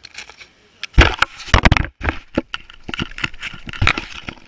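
Crunching, scraping and knocking right at the microphone of an action camera lying on snowy ice, as gloved hands and knees move through the snow beside it and handle it. Faint at first, it turns into a loud run of sharp, irregular crackles about a second in.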